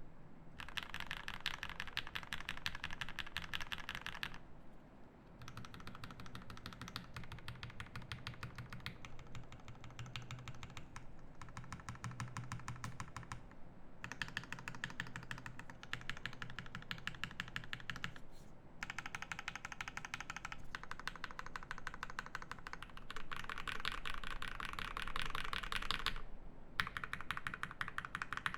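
Fast typing on a Classy TKL mechanical keyboard with a brass plate, lubed Everglide Aqua King 62g linear switches and GMK keycaps: quick, continuous runs of keystrokes broken by a few short pauses.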